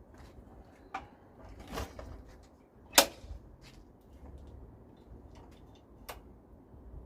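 A few sharp clicks and knocks over a low rumble, the loudest about three seconds in; no engine is running yet.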